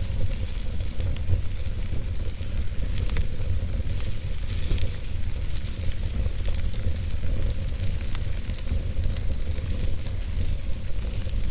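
Wood fire crackling in a fireplace: a steady low rumble of burning with scattered small pops and crackles throughout.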